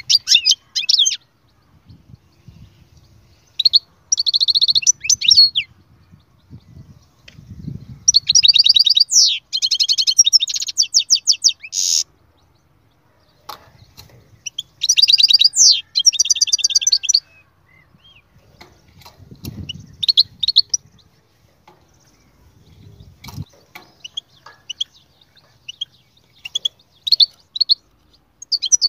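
European goldfinch singing: bursts of rapid, high twittering and trilled phrases, each one to four seconds long, separated by pauses of a few seconds.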